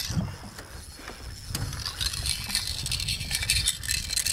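Wind rumbling on the microphone, with light, irregular splashing of water at the boat's side as a hand works in the water, the splashing growing after about a second and a half.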